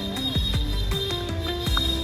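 Electronic background music with a steady beat: a bass line, deep drum hits and stepped synth notes.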